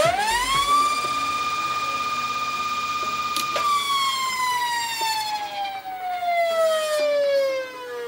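A Goosky E2 RC helicopter's electric motor and rotor spool up with a rising whine, then hold a steady high whine. About three and a half seconds in there is a click as the motor is switched off, and the pitch falls slowly while the rotor spins down.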